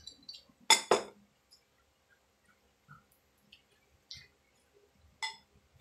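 A drinking glass set down on a wooden table with two sharp knocks close together, then faint small eating and handling clicks, and one more sharp clink of tableware near the end.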